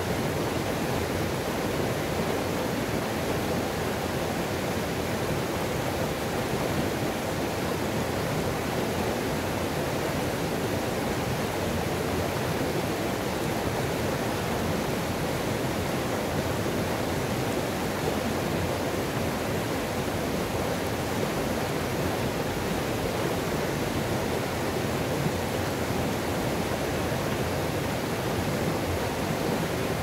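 Mountain river water pouring over rocks at a small waterfall cascade, a steady, even rush with no breaks.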